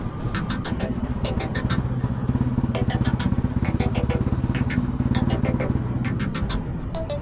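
Motorcycle engine running steadily while riding in traffic, with road noise and frequent sharp clicks over it.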